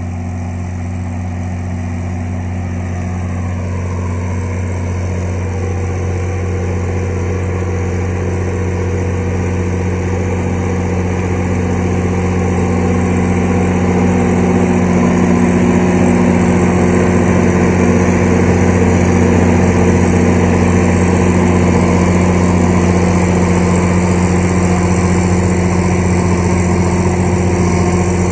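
Rába articulated tractor's John Deere PowerTech diesel engine running steadily while pulling an implement. It grows louder over the first dozen seconds as the tractor comes close, then holds a steady drone close by.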